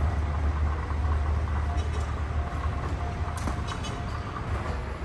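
Steady low rumble of a moving vehicle heard from inside, with a few short clicks or rattles about two and three and a half seconds in.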